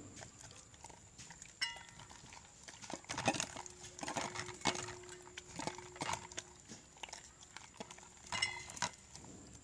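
Sticky homemade slime being kneaded by hand: a run of wet squelches and clicks starting about three seconds in and lasting several seconds, with a couple of brief squeaks. The slime is still too sticky and clings to the hands as it is worked.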